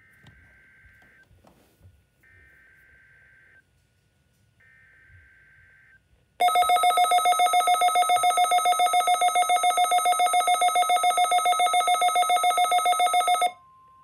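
Three short bursts of SAME digital header tones heard faintly through a Midland weather alert radio's speaker, announcing an EAS Required Weekly Test. About six seconds in, the radio's own loud, rapidly pulsing alert beep sounds for about seven seconds, then cuts off.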